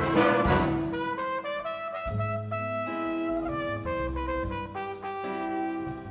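Jazz big band playing live, with brass and saxophones over piano, bass and drums. A loud full-band chord in the first second gives way to softer sustained horn chords with short drum strokes.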